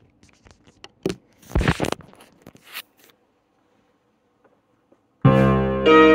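Clicks and rustles of a phone being handled and set down. About five seconds in, loud sustained electric-keyboard chords begin and change every half second or so.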